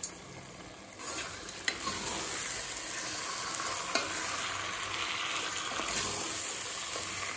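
Chicken pieces frying in an onion-tomato masala in a steel pressure cooker pan, with a steady sizzle that gets louder about a second in as they are stirred. A wooden spatula scrapes and knocks against the pot a few times.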